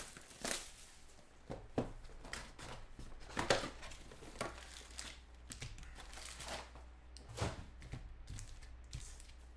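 Plastic shrink wrap crinkling and tearing as it is stripped off a cardboard trading-card box, followed by irregular rustles and crackles of foil card packs being pulled out and stacked.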